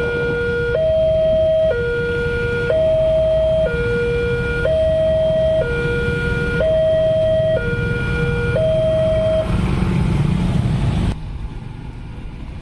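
Railway level-crossing warning alarm from the signal pole's loudspeaker: an electronic two-tone signal switching between a low and a high note about once a second, which stops about nine and a half seconds in.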